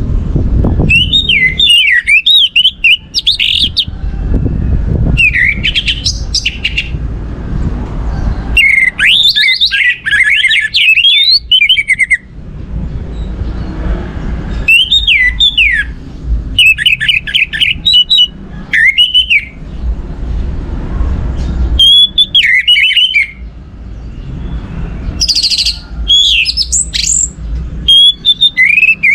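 Orange-headed thrush (anis merah) singing: about nine bursts of rapid, varied whistled phrases, each lasting one to three seconds with short pauses between, over a low background rumble.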